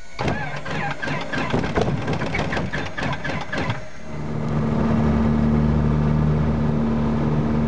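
Robin light aircraft's piston engine starting: an uneven, irregular clatter as it cranks and catches, settling about four seconds in into a steady running drone.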